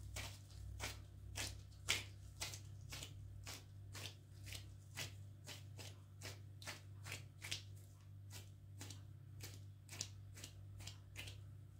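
Soft, rhythmic swishing strokes, about three a second, over a steady low hum.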